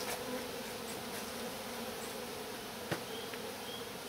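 Honeybees buzzing steadily around an open hive, a continuous low hum, with one sharp click about three seconds in.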